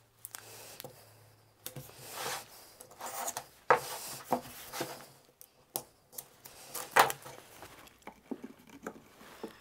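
Double-sided adhesive tape pulled off its roll with a rasping sound and snipped with scissors, then a wooden drawer front handled and set against the drawer. Among the rasping pulls are sharp clicks and knocks, the loudest a little under 4 seconds in and about 7 seconds in.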